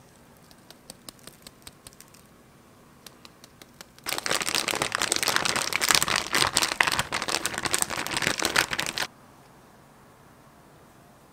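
Zipper-lock plastic bag holding chicken pieces in a soy-sauce marinade, crinkling loudly as it is kneaded by hand for about five seconds, then stopping abruptly. Before that, a few light scattered clicks.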